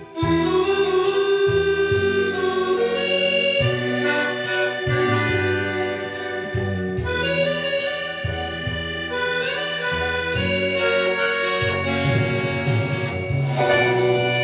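Solo accordion playing a lively piece: sustained chords over a moving bass line, with notes changing about once a second, after a brief break in the sound right at the start.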